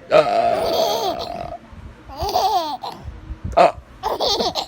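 Baby laughing hard, about seven months old: one long high laugh lasting about a second and a half, then shorter bursts of laughter.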